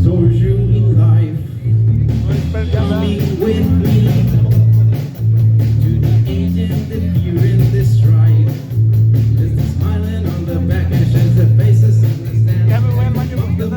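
Live rock band playing: a Gibson Les Paul Standard electric guitar over a steady bass line and drums, with cymbal ticks keeping time from about two seconds in.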